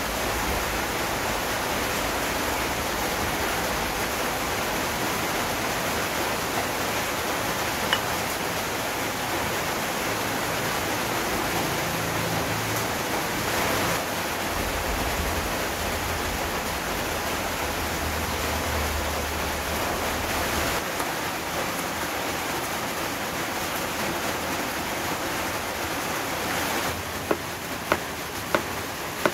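A steady rushing hiss, with a few sharp knife chops on a plastic cutting board near the end as an onion is sliced.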